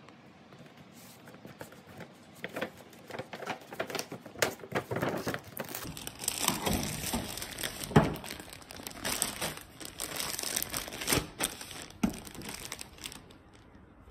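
Stiff paper shopping bag and a clear plastic garment sleeve rustling and crinkling as a shirt is unpacked by hand, with one sharp knock about eight seconds in.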